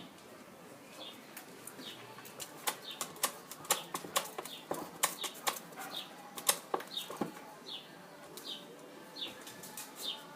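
A small bird chirping, a short high chirp about every half second, with a flurry of sharp taps and wing flaps in the middle.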